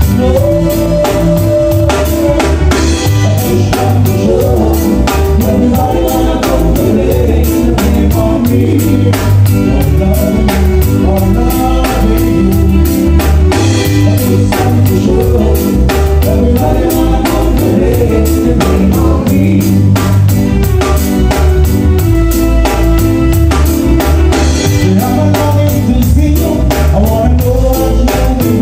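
Live Caribbean band music: electric bass, drum kit and keyboards playing a steady beat, with a woman singing.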